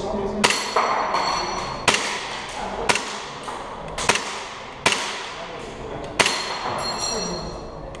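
Airsoft gas blowback pistol firing single aimed shots, about six sharp cracks spaced roughly one to one and a half seconds apart, several followed by a short metallic ring.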